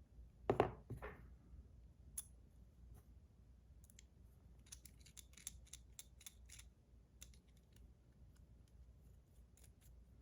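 Zirconium fidget spinner and its buttons handled and fitted together: a couple of louder short knocks about half a second in, then a run of light, sharp metallic clicks.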